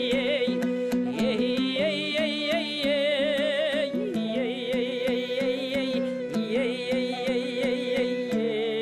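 Kobyz ensemble, Kazakh bowed horsehair-string fiddles, playing a slow melody with wide vibrato over a sustained low drone, with light regular strikes keeping a beat about two to three times a second.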